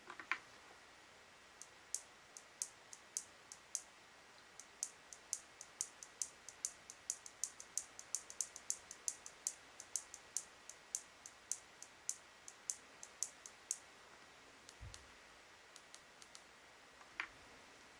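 A series of light, sharp clicks, irregular and a few a second, stopping about fourteen seconds in, followed by a single dull thump and one last click.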